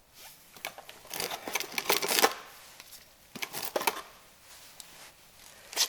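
Clicking and rattling handling noises in a few short clusters, the loudest a second or so in and another about three and a half seconds in.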